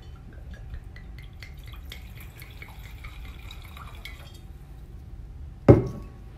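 Liquid being poured into a glass, with small drips and clinks, and one loud knock near the end.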